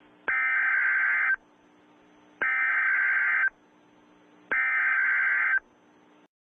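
Emergency Alert System SAME header: three bursts of warbling digital data tones, each about a second long and about a second apart. This is the coded burst that opens an EAS alert.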